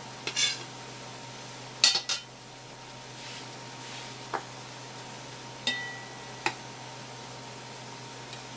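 Scattered clinks and knocks of a small ceramic bowl of crushed ice being handled and set down on a wooden cutting board, with a kitchen knife tapping the board. The loudest is a sharp clatter about two seconds in, and one clink near the middle rings briefly.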